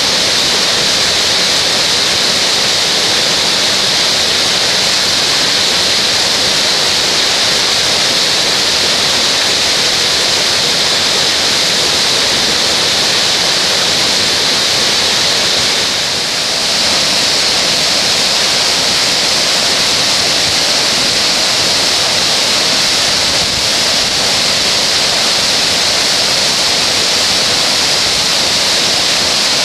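Water plunging at the Asama Ōtaki waterfall: a loud, steady rush with a brief dip about sixteen seconds in.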